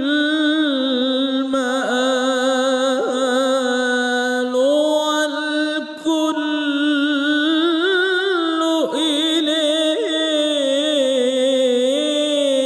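A man's solo voice singing an unaccompanied Islamic devotional chant, holding long, ornamented notes with a wavering vibrato. There is a short break about six seconds in.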